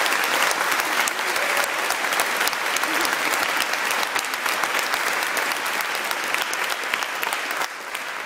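Audience applauding steadily, the clapping thinning slightly near the end.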